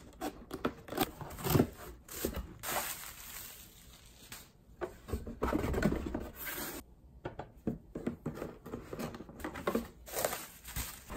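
Cardboard box being opened and unpacked by hand: irregular knocks, with cardboard flaps and inserts scraping and rustling, and bubble-wrap packing crinkling near the end.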